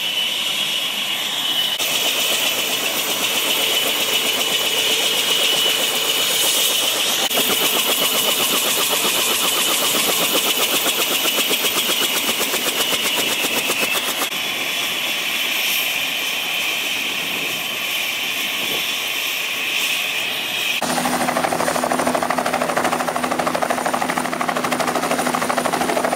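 Bell helicopter's turbine whining at a steady high pitch over the rapid chop of its spinning main rotor. Near the end the sound turns into a deeper, pulsing rotor beat.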